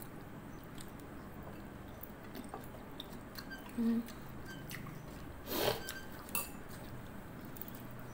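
Eating by hand at a table: fingers working rice on a plate with small clicks and light taps of the dishes, and chewing. A short low hum comes about four seconds in, and a louder brief noisy sound a little past halfway.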